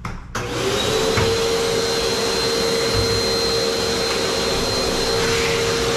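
Shop vacuum switched on a fraction of a second in, its motor spinning up with a brief rising whine and then running steadily as it cleans up the debris from grinding the sink hole.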